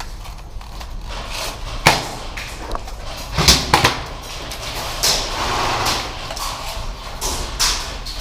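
Scattered sharp clicks and knocks, about five in all, over the rustle of movement.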